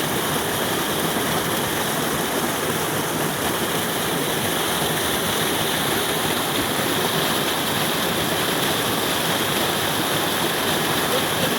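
Steady rush of flowing water from a hot-spring stream.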